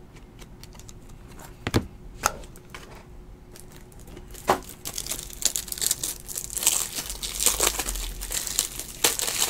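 Plastic card packaging crinkling and rustling continuously from about halfway, after three sharp clicks in the first half.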